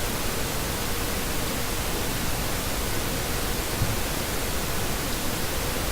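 Steady, even hiss of background noise with a faint steady tone underneath; nothing else happens.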